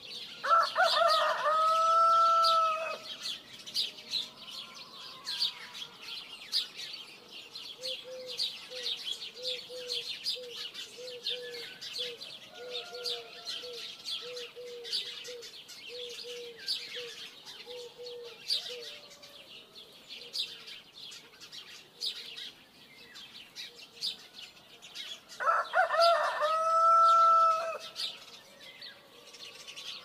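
A rooster crows twice, about a second in and again near the end, over constant high chirping of small birds. In between, a low call repeats evenly for about ten seconds.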